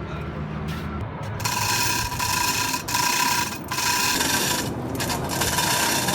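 A power tool running in several bursts with short breaks, a loud whine over a hiss, starting about a second and a half in; before it, a low engine hum.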